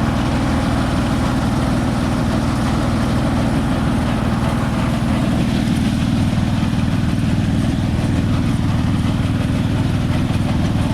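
Konma MT-S411D harvester running steadily, its engine and threshing drive giving an even mechanical hum.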